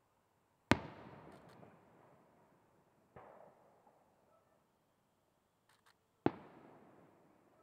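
Aerial firework shells bursting: two sharp booms about five and a half seconds apart, each followed by a long echo that dies away over about two seconds, with a fainter boom between them.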